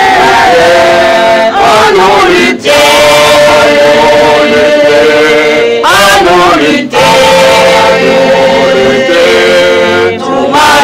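Women's choir singing a hymn in long held notes, the phrases broken by short pauses about three times.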